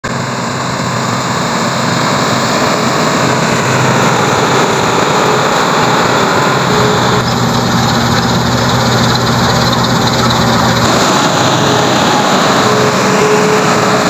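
New Holland 8070 combine harvester working through standing wheat: its diesel engine and threshing machinery make a steady, loud mechanical drone.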